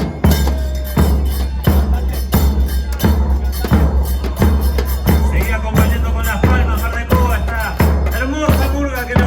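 Music with a steady beat of heavy drum strokes and percussion; about halfway through, a wavering melody line comes in over the beat.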